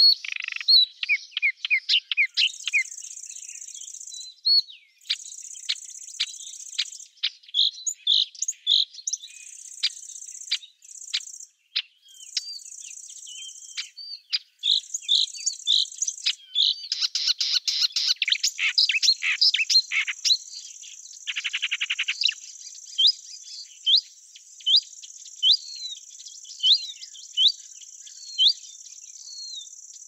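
Small songbirds chirping in quick, sharp notes over a high, dry insect trill. The trill comes in bursts of a second or two, then runs on without a break from a little past halfway. Later a bird repeats a short falling note about once a second.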